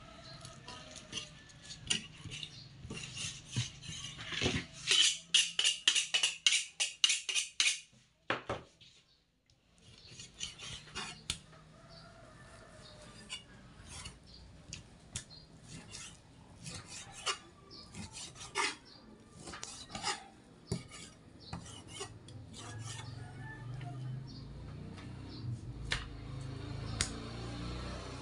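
Kitchen knife working through pork on a cutting board: scraping strokes and sharp knocks, with a quick run of chops about five seconds in, then scattered knocks. A low hum comes up near the end.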